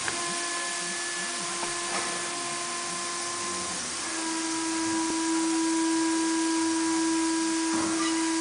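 Truck tyre changer's motor running steadily with a hum over a hiss; the hum deepens slightly and grows louder about four seconds in as the machine works the tyre.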